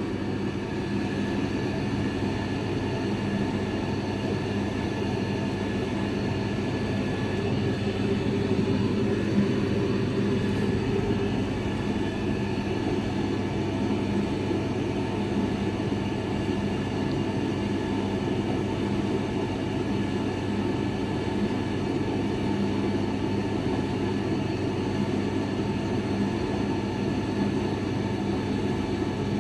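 A Hotpoint TL52 running with a steady drone and low hum: the abnormal running noise that its owner is asking help to fix.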